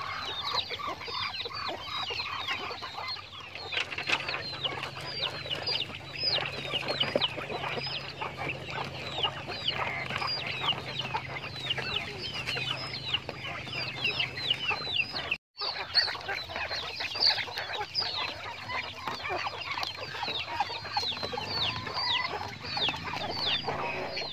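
A flock of caged quail gives many short, high, falling chirps over one another without pause, with scattered pecking ticks as they feed from a trough. The sound breaks off for an instant about two-thirds of the way through.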